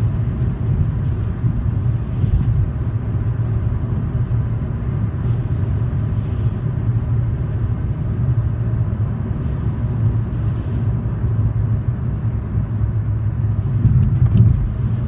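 Road and engine noise heard inside a car's cabin at highway speed: a steady low rumble, with a brief clatter of sharp clicks near the end.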